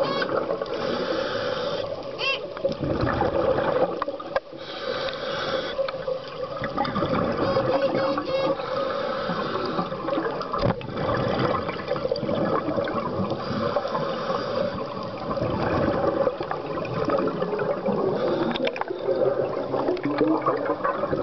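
Scuba diver's exhaled air bubbling from the regulator, heard underwater as continuous bubbling.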